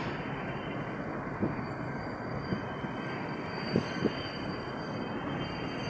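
Steady road noise inside a moving Nissan van's cabin: tyre and engine rumble with a few short knocks near the middle.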